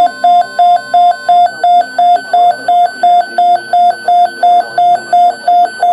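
Weather alert radio's alarm beeping: a loud, buzzy beep about three times a second, signalling an incoming NOAA Weather Radio alert.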